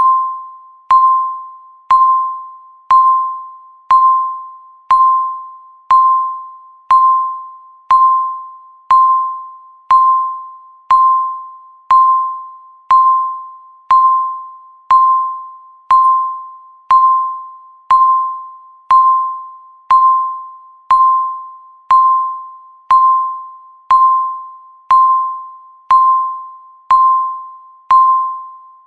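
Countdown timer beeps, one each second: a single clear electronic tone that starts sharply and fades away before the next.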